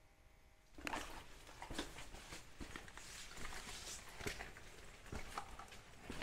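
Footsteps on loose stones along a rocky chasm floor, starting about a second in: an irregular run of clicks and knocks as rocks shift and tap underfoot.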